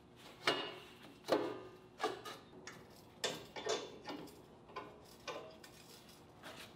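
A string of light metal clanks and taps, each with a short ring, one or two a second: square steel tubing ribs being set into a door frame and clamped down on a steel welding table.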